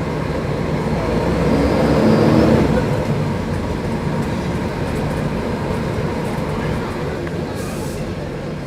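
Diesel engine of a Mercedes-Benz O500UDA bus running under way. It builds to its loudest about two seconds in, then eases off to a steady run.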